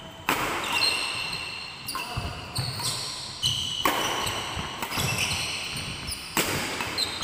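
Badminton rally: rackets hitting the shuttlecock about every second or so, each sharp hit echoing in the hall, with sneakers squeaking on the wooden court between shots.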